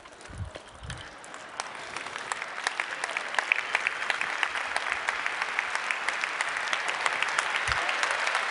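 A large theatre audience applauding, the clapping swelling over the first couple of seconds and then holding steady.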